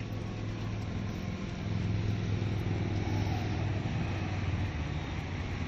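Steady drone of a car in motion: a low engine hum under an even wash of road noise, a little louder from about two seconds in.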